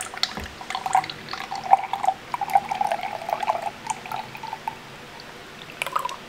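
Canned espresso-and-milk coffee drink being poured from an aluminium can into a drinking glass, the stream splashing irregularly into the glass, busiest for the first four seconds or so and then weaker.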